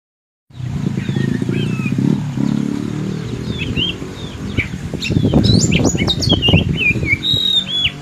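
Caged oriental magpie-robin giving short whistled calls and chirps, sparse at first and busier in the second half, over a loud low drone.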